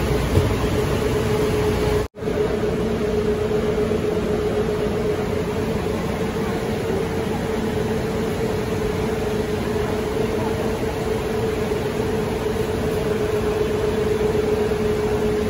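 Idling coach bus: a steady mechanical drone with a constant hum tone. It drops out for a split second about two seconds in.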